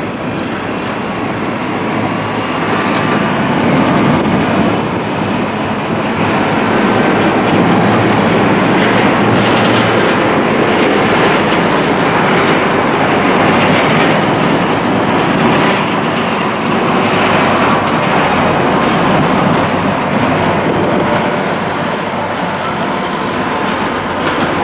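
Loud, steady rushing of road traffic and wind in a blizzard, building over the first few seconds and then holding.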